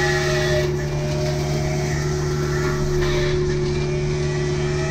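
Kubota U55 mini excavator running with its MTL XC5 hydraulic brush cutter spinning: a steady, even machine hum. Short rushes of noise come just after the start and about three seconds in, as the cutter works through brush.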